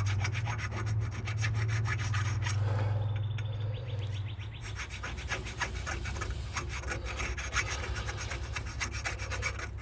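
Quick, rhythmic hand scraping of metal as a hole is cleaned out, stroke after stroke. A steady low hum sits underneath for the first four seconds or so.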